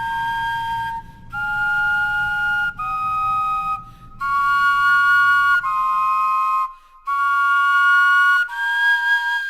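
Flute-like wind instruments made from vegetables play a slow melody of about seven held notes, two pitches sounding together, with short breaks between notes. The vegetables have been kept a week in a refrigerator and sound almost exactly like fresh ones.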